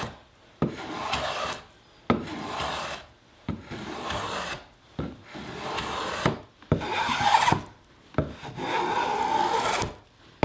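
Small hand plane cutting shavings from the edge of a Douglas fir table leg to round it over. About six strokes, one every second and a half or so; each starts with a sharp tap and runs into a rasping swish lasting about a second.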